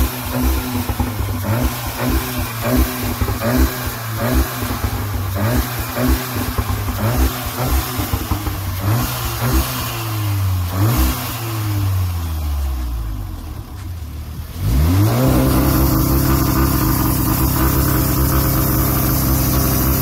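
VW Golf 2.0 TSI turbocharged four-cylinder engine revved while standing: a string of quick throttle blips about once a second, then the revs sink back to idle, then a sharp rise to a high rev held steadily for the last few seconds.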